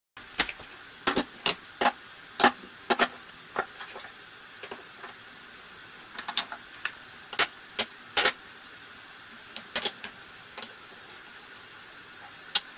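Irregular sharp knocks and clacks of wooden pallet boards and metal weight plates being handled and set down on a workbench, some twenty hits in uneven clusters over a faint hiss.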